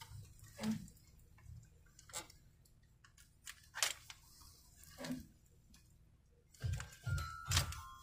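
Hanging t-shirts being pushed aside by hand: soft fabric rustling with scattered short, sharp clicks and quiet gaps between them. Near the end, music with a steady beat comes in.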